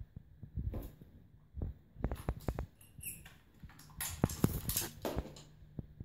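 Small plastic toy animal figures being picked up and set down on the floor one after another: irregular clicks and light knocks with some shuffling, busiest about four seconds in.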